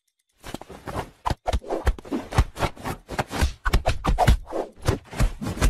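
Rapid close scraping, rubbing and knocking, a dense run of sharp strokes with heavy low thuds.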